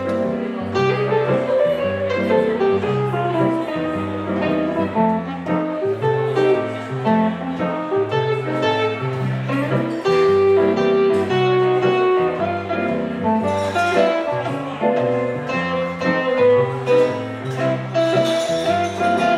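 Live blues band playing an instrumental passage with no singing: hollow-body electric guitar and keyboard over a steady stepping bass line.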